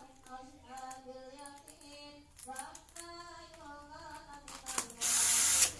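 A voice singing a melody in the background, and about five seconds in a loud, noisy burst lasting under a second.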